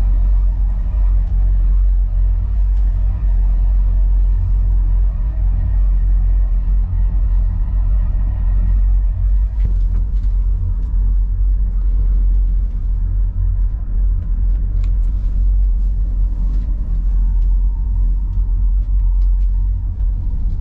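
Steady low rumble inside a single-person standing gondola cabin of the Langkofelscharte lift as it travels down the cable, with a few faint ticks and clicks in the middle and towards the end.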